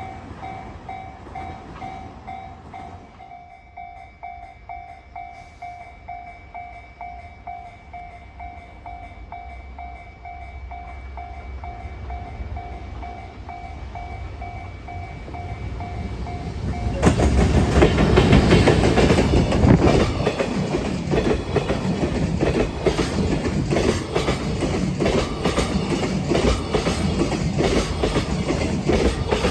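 Level crossing warning bell ringing in an even pulsing rhythm over the slowly growing rumble of an approaching freight train. About seventeen seconds in the bell stops suddenly and the freight train passes loudly, its wheels clattering over the rail joints.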